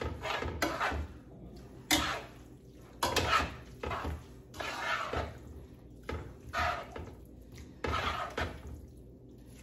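Kitchen tongs clacking against a skillet as sauce-coated fettuccine is tossed, with the wet noodles squishing between the strokes. The clacks are sharp and irregular, about one a second.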